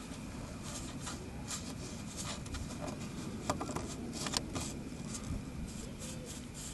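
A Lake Country Foam on a Stick swab scrubs in and out of the openings of a Toyota Corolla's mesh grille, giving soft scratchy rubbing with a few light clicks, most of them in the middle. A steady low rumble runs underneath.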